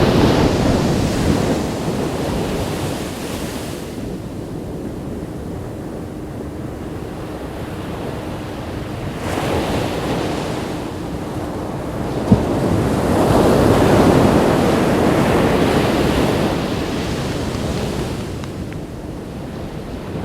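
Ocean waves breaking and washing up a beach, swelling and fading every few seconds, with wind buffeting the microphone. A single sharp click sounds a little past the middle.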